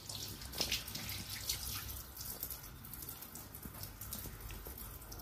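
Tap water running from a hose into a concrete sink and onto a metal pan, with scattered splashes and drips while a green iguana is rinsed under the stream.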